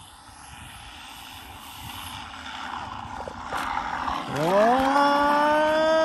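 FMS 1450 mm P-51 Mustang RC model flying with its engine-sound system, a growing rush of propeller noise. About four seconds in, a droning engine tone sweeps up in pitch, holds steady, then cuts off sharply at the very end.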